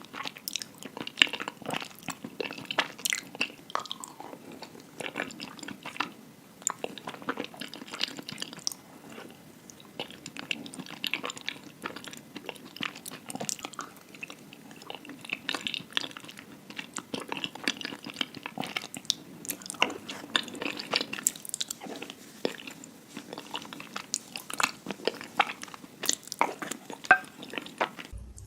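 Close-miked chewing of mac and cheese: an unbroken run of irregular sharp mouth clicks and smacks.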